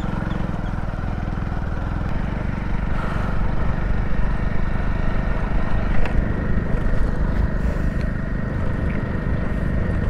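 Motorcycle engine running steadily as the bike rides along a dirt track, a low, even pulsing drone.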